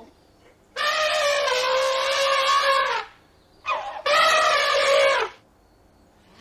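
An animal calling: two long calls of about two seconds each at a steady pitch, with a short rising call between them.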